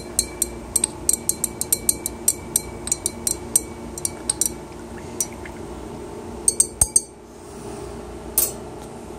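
Glass stirring rod clinking against the inside of a glass beaker while liquid is stirred: rapid clinks, several a second, for about four seconds, then a few scattered taps as the stirring stops.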